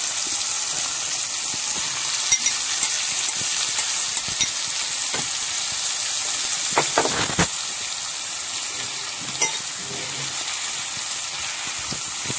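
Onion, tomato and mashed potato sizzling in oil in a non-stick kadhai over a low flame, stirred with a wooden spatula. The steady high sizzle is broken by scattered soft clicks of the spatula against the pan, with a louder stroke about seven seconds in.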